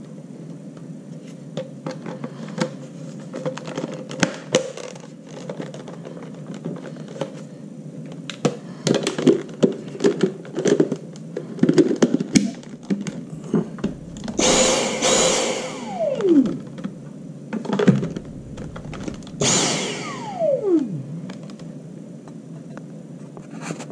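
Plastic parts of a Dyson V6 handheld stick vacuum clicking and knocking as they are fitted together. The vacuum's motor is then run twice in short bursts, about halfway through and again near the end, and each time it winds down with a falling whine once the trigger is released.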